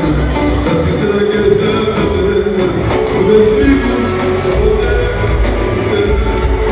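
A live band playing Greek popular (laiko) music with a singer, heard from the audience in a large concert hall, over a steady drum beat.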